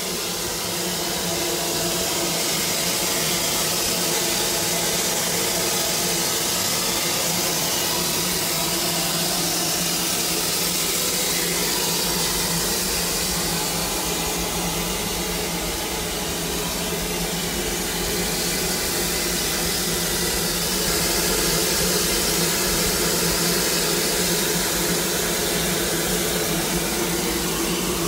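Vulcan Iron Works steam locomotive standing under steam: a steady hiss of escaping steam with a steady mechanical hum beneath it.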